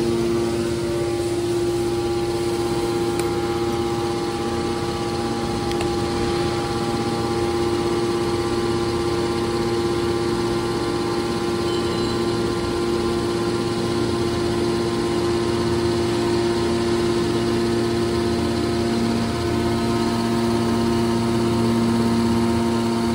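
Electric motor and hydraulic pump of a scrap metal baler's power unit running with a steady hum that holds several constant tones.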